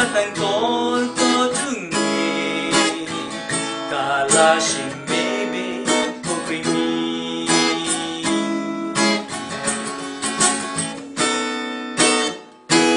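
Steel-string acoustic guitar, capoed, strummed in a steady chord accompaniment, with a man singing over it in places. Near the end the playing dips briefly, then a last strum rings out.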